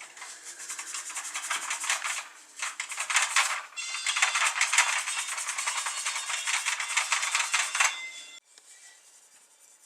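Fast, rapid scrubbing on the plastic hull of a toy jet, working off old sticker-glue residue softened with Goo Gone. It stops abruptly about eight seconds in.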